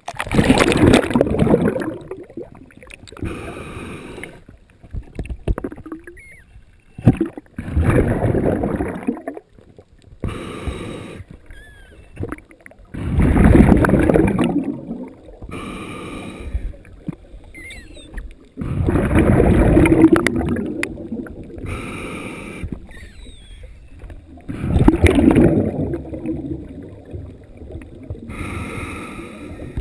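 Scuba regulator breathing, heard underwater through a GoPro dive housing: a slow cycle of short hissing inhalations through the regulator and five louder bubbling exhalations, about six seconds apart.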